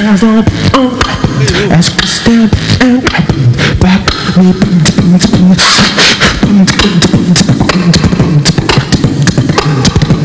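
Vocal beatboxing into a handheld microphone: fast, dense drum-like kicks, snares and clicks made with the mouth, with a low hummed bass line carried under the beats at the same time. About five and a half seconds in, a long hiss stands out over the rhythm.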